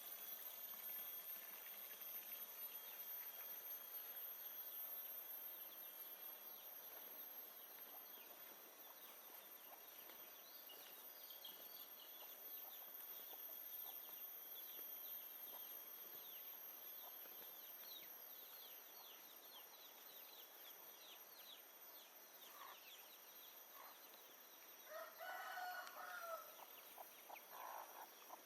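Quiet jungle ambience: a steady hiss with faint continuous insect trilling, and many quick high chirping bird calls through the middle. Near the end, a rooster crows.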